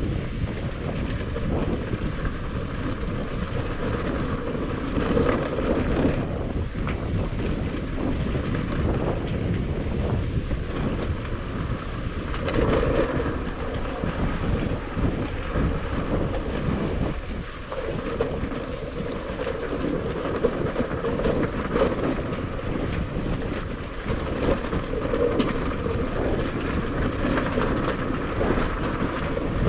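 Motorcycle ridden along a rough dirt track: continuous engine and road noise with wind on the microphone and irregular knocks and rattles from the bumps.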